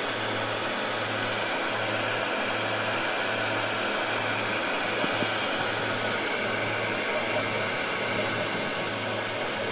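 A steady rushing noise with a low hum underneath that pulses a little under once a second.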